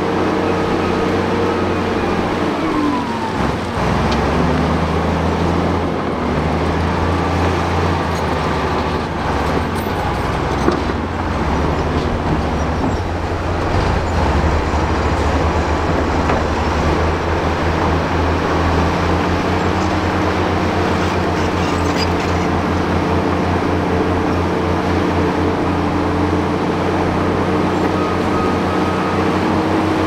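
Crawler bulldozer's diesel engine running hard as the blade pushes a pile of soil and rock. The engine note dips about three seconds in and recovers, then holds steady.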